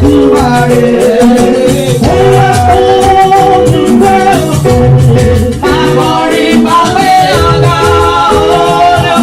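Loud music with singing and a shaken rattle keeping the beat, in a Latin-like dance rhythm.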